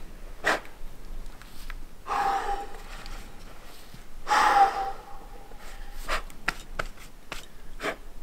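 A rock climber breathing hard under exertion: short, sharp exhales throughout, with two longer strained grunts about two and four seconds in, the second the louder.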